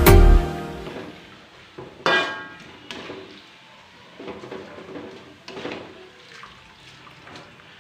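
Background music ends, then metal kitchenware clinks and clatters a few times, the loudest clink about two seconds in ringing briefly.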